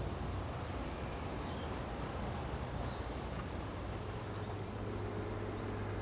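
Steady low outdoor rumble with two brief, very high-pitched bird chirps, one about halfway through and one near the end. A steady low hum joins a little past four seconds in.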